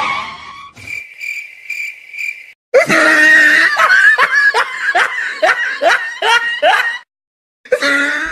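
A high-pitched giggling laugh: a string of short rising-and-falling notes, about two to three a second, with a short break before one more near the end. It is preceded by a brief high pulsing tone.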